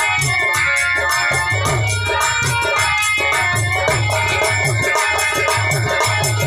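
Indian folk-style music: a harmonium holding a melody over a steady, fast beat of hand drum and shaker.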